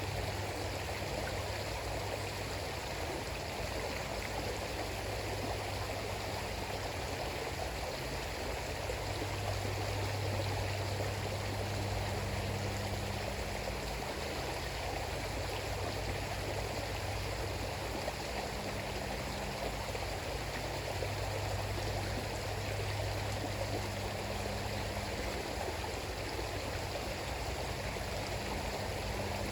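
River water flowing steadily, a continuous rush without a break, with a low hum underneath that swells and fades a few times.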